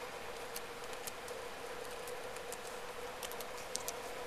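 Laptop keyboard keys clicking as a password is typed, scattered light clicks with two louder ones near the end as the login is entered, over a steady faint hum.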